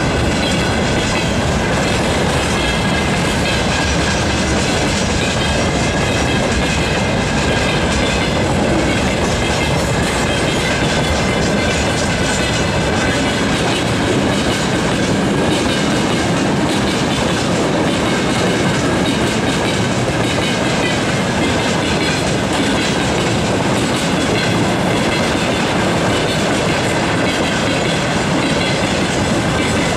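Freight train's tank wagons rolling past close by: a loud, steady noise of steel wheels running on the rails, with a faint high ringing over it.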